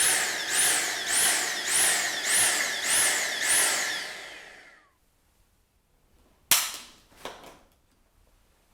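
Dyson V6 cordless vacuum running and surging on and off about every half second or so, the pulsing that is the typical sign of a blockage, then winding down with a falling whine about five seconds in. A sharp plastic click and a couple of softer clicks follow near the end.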